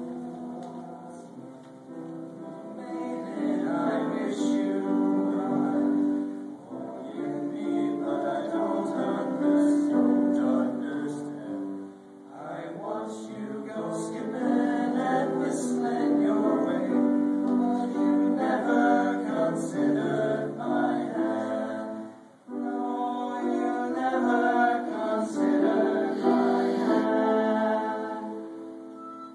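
An eight-voice male choir singing in parts, with a flute playing along. The singing comes in phrases separated by short breaths or pauses.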